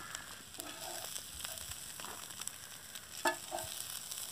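Chicken liver fry sizzling in an iron pan while a spoon scrapes and scoops it out of the pan. A brief louder call cuts in a little after three seconds.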